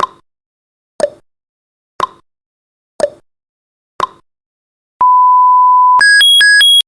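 Countdown timer sound effect: a clock tick once a second, five ticks, then a steady one-second beep as it reaches zero, followed by a rapid electronic alarm alternating between two higher pitches.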